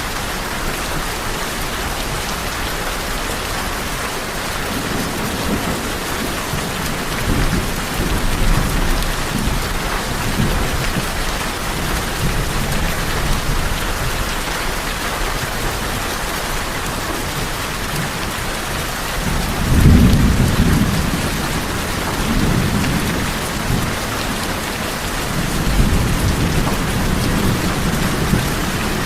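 Steady rain on a tin roof, with low thunder rolling in several times, the loudest about two-thirds of the way through.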